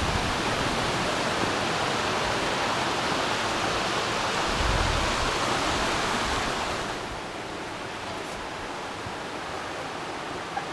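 Rushing water of a mountain stream cascade, a steady hiss. It briefly rumbles with wind on the microphone about halfway through, then turns softer and duller about seven seconds in.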